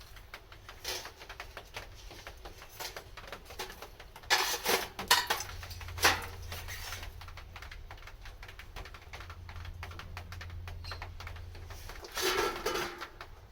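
Wood fire crackling and popping in a pail-can wood stove, with a few louder bursts of crackle.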